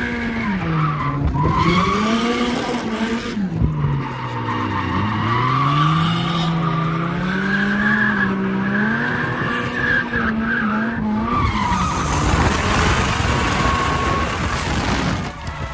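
Drift car engine revving up and down through a slide, the revs dropping and climbing again twice, with tyres squealing. A wide rush of noise builds over the engine in the last few seconds.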